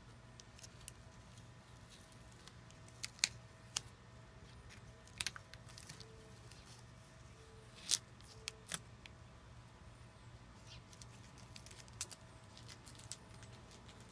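Scattered sharp clicks and light taps from hands handling painter's tape and the wooden panel, over a faint steady low hum.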